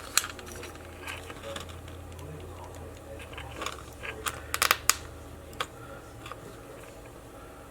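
Small sharp plastic clicks and handling noises from a spider-type anti-theft alarm tag being worked on by hand, with a quick cluster of clicks about four and a half seconds in. A faint low hum sits underneath and fades out about six seconds in.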